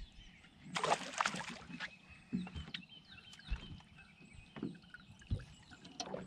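Sounds of an angler moving about a fishing boat: a brief rushing splash about a second in, then scattered low knocks and thumps on the boat, with faint birds chirping.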